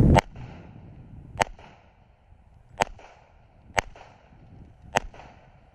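Semi-automatic pistol fired five times in slow, deliberate shots about a second or so apart, each a sharp crack. Each shot is followed a moment later by a faint ring from the struck steel plate.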